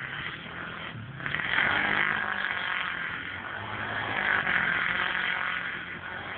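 Motocross bike engine revving up and down as the rear wheel spins the bike round in circles in snow, getting louder about a second in.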